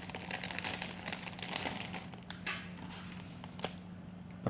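Plastic packaging of a laptop hard-disk mounting kit crinkling as it is opened and handled, dense for the first two seconds or so, then lighter scattered crackles and a few clicks.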